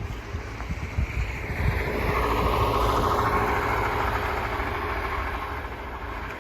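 A motor vehicle passing, its engine and tyre noise swelling about two seconds in and then slowly fading, over a low rumble of wind on the microphone.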